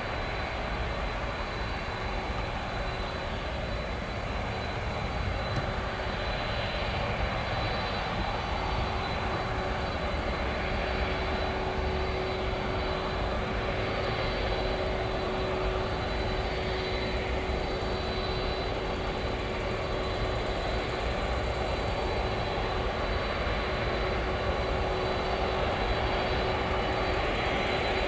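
Jet engines of a Boeing 747-400 freighter running at taxi power: a steady rumble with a faint steady high tone, growing slightly louder as the aircraft comes closer.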